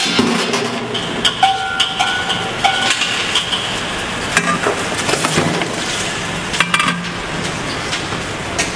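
Freshly popped caramel popcorn pouring out of a hand-stirred popcorn machine's kettle onto a perforated stainless-steel tray: a steady rattling rustle, with frequent metal clinks and scrapes.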